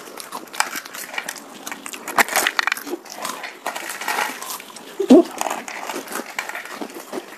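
Crunching and munching of crisp snacks (Kurkure and potato chips) being eaten face-first straight off plates without hands, as many irregular crisp clicks. A short vocal noise comes about five seconds in.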